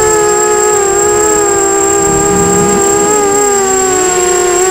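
250-size FPV racing quadcopter's brushless motors and propellers whining in flight, heard from the onboard camera. Several pitches shift as the motors change speed, one dropping briefly about three and a half seconds in, with a steady high whistle above them.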